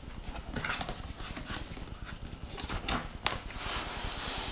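Cardboard box being opened by hand: irregular taps and knocks of the lid and flaps, then a scraping slide near the end as the inner box is pulled out.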